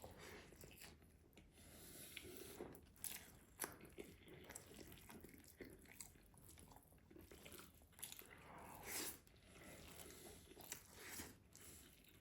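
Quiet, close-miked chewing and mouth sounds of someone eating rice and meat: irregular wet smacks and small clicks, with a couple of sharper clicks about three seconds in and a louder smack near nine seconds.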